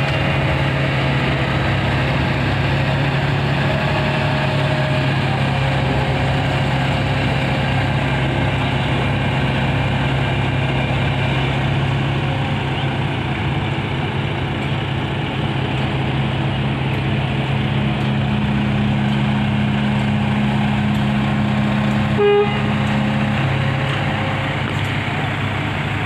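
Heavy diesel construction machinery running steadily at a constant speed, with a second, higher engine note joining for a few seconds near the end. A short horn toot sounds about 22 seconds in.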